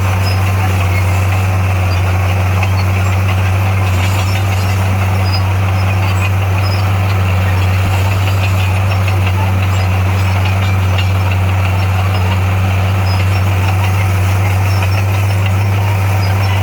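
Heavy diesel engine running steadily at a constant speed, with a deep, even hum.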